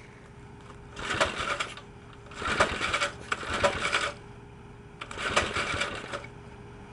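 Small single-cylinder engine with a GEET fuel processor being pull-started: three bursts of cranking, each about a second long, with fast rattling strokes, the engine not catching between pulls.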